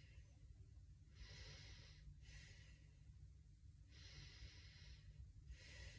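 A woman's faint, slow breaths, two of them about three seconds apart, taken while holding a pursed-lip face-yoga pose.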